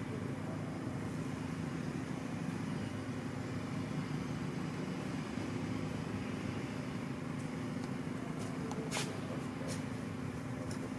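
Steady low background rumble with a constant low hum through it, and a few sharp clicks about nine seconds in.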